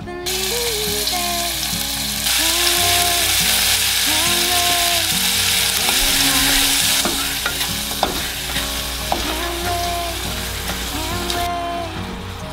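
Minced garlic and then chunks of raw chicken sizzling in hot oil in an aluminium saucepan. The sizzle grows louder about two seconds in, then dies away and stops near the end.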